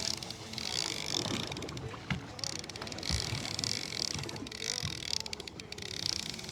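A fishing boat at sea: the motor runs steadily while water washes along the hull in hissing surges that come every second or so.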